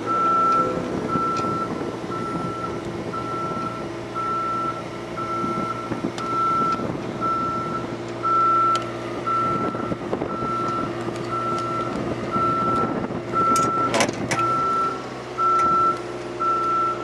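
An aerial lift's motion alarm beeps steadily about once a second while its engine runs, as the basket is lowered. There is a brief clatter of clicks about 14 seconds in.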